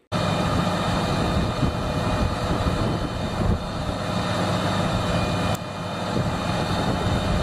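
Heavy rotator tow truck's diesel engine running steadily while the truck works.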